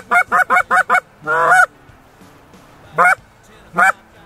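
Snow goose calls: a quick run of about six short, high honks in the first second, one longer call, then single honks about a second apart.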